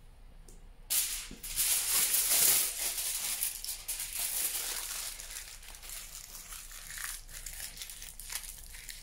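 Aluminium foil crinkling and crackling as it is handled and crumpled by hand into a small wad. It starts suddenly about a second in and is loudest over the next two seconds.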